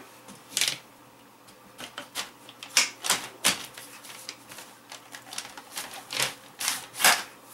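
Polymer Command Arms sniper stock being slid onto an AR-15 buffer tube: a string of irregular sharp clicks and clacks as the stock and its latch catch on the tube.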